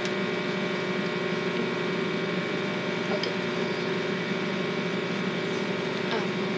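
Microwave oven running: a steady hum with several held tones over an even whirr.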